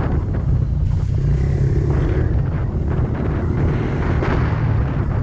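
Motorbike engine running steadily under way on a dirt track, heard from the bike itself, with wind buffeting the microphone.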